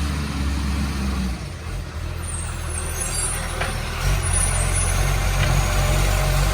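Garbage truck's diesel engine running, with the pulsing low note of a leaking exhaust. The engine note drops about a second in and comes up again around four seconds in, with a few faint high squeaks and a click in between.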